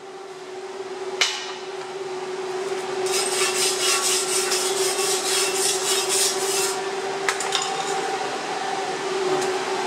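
Rapid rhythmic scraping on steel, about four strokes a second for some four seconds, over a steady hum, with a sharp knock about a second in and two light clicks later.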